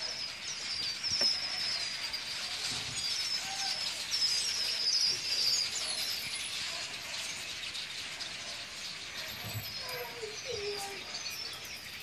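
A large flock of small birds calling together in flight, a dense chorus of high chirps that thins out after about six seconds.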